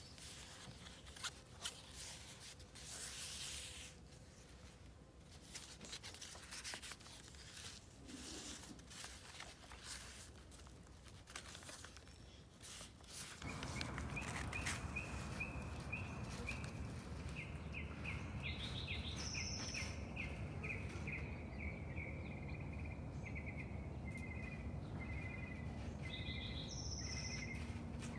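Paper pages of a handmade junk journal rustling and being turned, in short scattered rustles. About halfway through, a steady outdoor background sets in with birds chirping in quick repeated notes.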